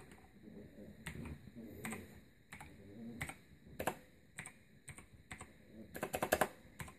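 Keys of a new Razer BlackWidow Chroma mechanical keyboard being pressed by hand: scattered single key clicks, then a quick run of presses about six seconds in.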